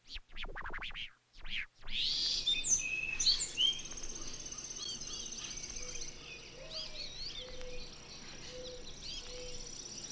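Birds chirping and twittering over a steady high-pitched insect drone, with a few short low notes repeating in the second half. A few short sweeping bursts come before it in the first two seconds.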